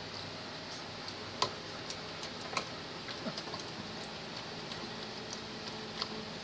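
A puppy scrabbling about on a tiled floor: scattered light clicks and taps over a steady hiss, a few sharper ones standing out.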